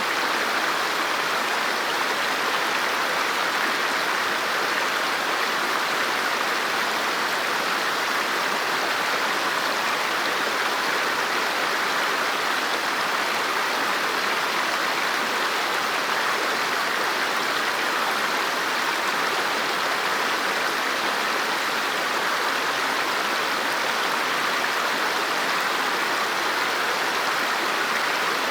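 River water flowing over rocks: a steady, even rushing with no breaks.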